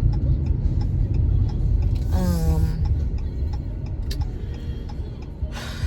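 Steady low road and engine rumble inside a moving car, with faint regular ticking about twice a second, typical of a turn signal. A short hummed vocal sound comes about two seconds in.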